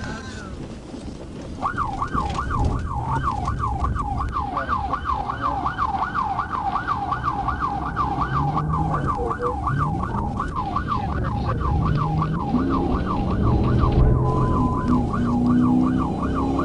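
Police car siren in its fast yelp mode, sweeping up and down about three times a second, over the pursuing car's engine and road noise. It starts about two seconds in and briefly holds a steady tone near the end before yelping again.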